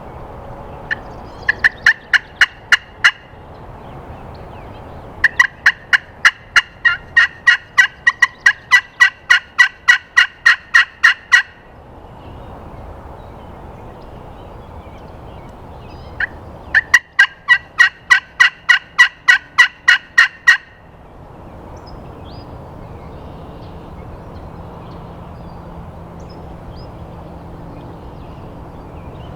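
A turkey call run in three fast series of sharp yelping notes, about four a second, the middle series the longest. It is being used to try to get a gobbler to answer.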